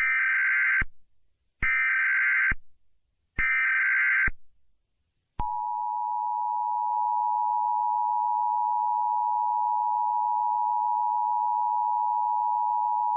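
Emergency Alert System tones: three short bursts of the warbling digital SAME header, each just under a second. About five seconds in, the steady two-tone EAS attention signal starts and holds.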